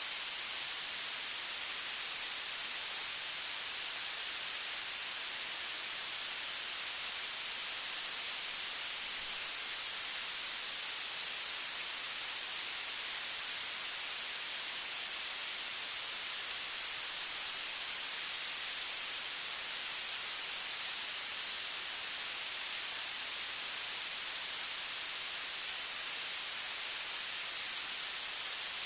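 Steady hiss of static, strongest in the high end, with nothing else standing out: recording noise with no sound events.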